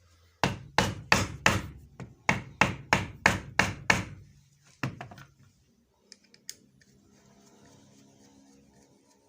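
Hammer blows, about a dozen sharp strikes at roughly three a second, then one more blow and a few light clicks.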